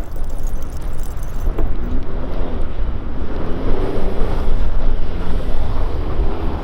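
Mercedes-AMG C43's engine revving up and falling back several times over a heavy low rumble.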